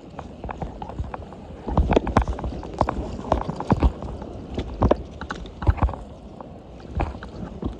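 A run of irregular knocks and clacks, loudest in the middle, over a steady rushing background.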